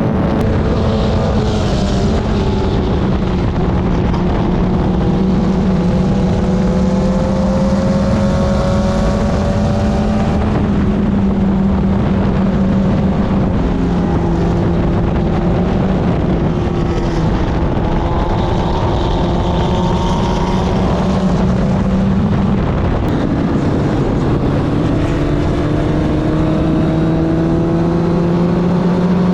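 Club Ford open-wheel race car engine running hard at high revs, its pitch slowly rising and falling as it works through the corners, with a sharp drop about 23 seconds in and then a steady climb again.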